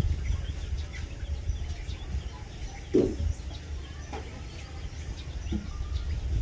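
A hen clucking a few short times, the loudest about three seconds in, with faint high peeps from chicks, over a steady low rumble.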